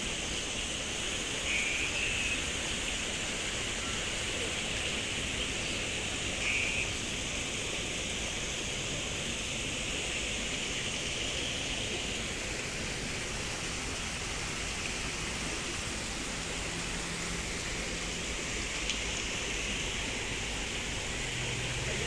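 Steady rush of running, splashing water at a pond, with two brief high chirps about two and six and a half seconds in.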